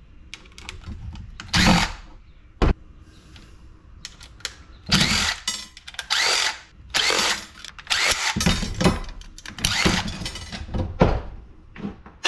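Cordless drill or driver run in a series of short bursts, a second or less each, backing screws out of a scrap metal light fixture, with a sharp click about two and a half seconds in.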